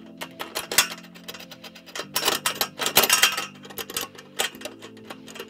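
Irregular metallic clicking and clinking from the radio's mounting bracket hardware being worked on a metal truss, with a dense burst of clicks about two to three seconds in, over quiet background music.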